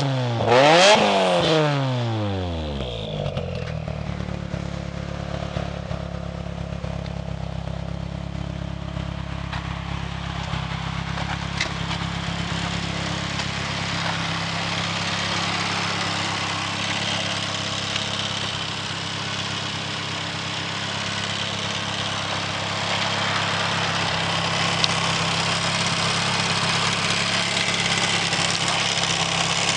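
Turbocharged SR20DET four-cylinder engine of a tuned Nissan Silvia S14 with a TRUST T518Z turbo, blipped once to a quick rev that falls away within about two seconds, then idling steadily.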